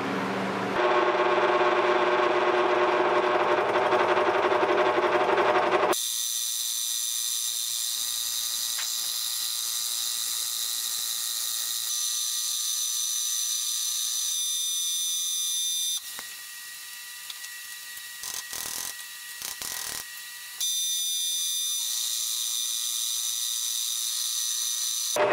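Vertical milling machine running with an end mill cutting a 6061 aluminum block. A steady lower hum gives way about six seconds in to a high-pitched whine of the cut, which drops quieter for about five seconds past the middle and then comes back.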